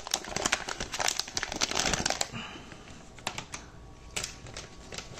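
Crinkly foil wrapper of a hockey card pack being crumpled and pulled off the cards, dense for about two seconds. Then quieter, with a few scattered clicks as the stack of cards is handled.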